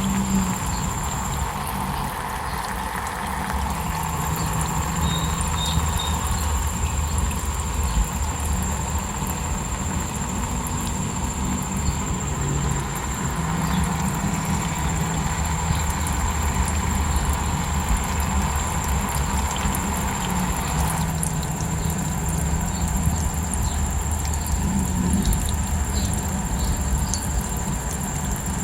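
Steady rush of falling water with a continuous high-pitched cricket trill over it.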